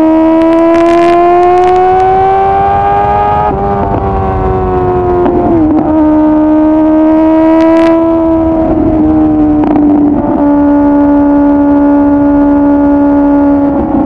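Kawasaki ZX-10R's 1000cc inline-four with a full aftermarket exhaust running at high revs under way. The pitch climbs slowly for the first few seconds, dips briefly with a couple of short throttle changes, then holds steady at a slightly lower pitch.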